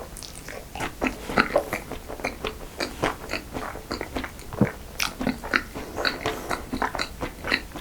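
Close-miked eating of dessert: a steady run of irregular bites, chewing and small crisp crackles, several a second.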